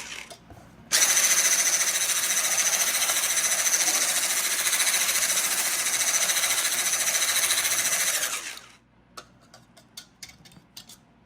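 Electric mixer beating a batter of eggs, brown sugar, salt and baking powder: a short burst, then a steady motor whirr for about seven seconds that stops about 8.5 seconds in. A few light clicks follow near the end.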